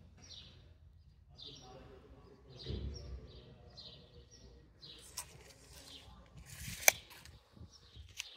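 A steel tape measure's blade sliding back into its case and snapping shut with one sharp click, the loudest sound, near the end. Small birds chirp repeatedly in the background, and there is a dull thump about three seconds in.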